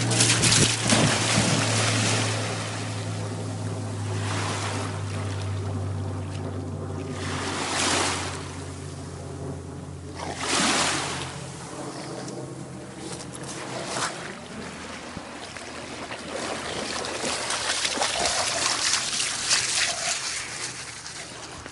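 Waves washing on a shoreline with wind, swelling and fading every few seconds, and a steady low hum through the first several seconds.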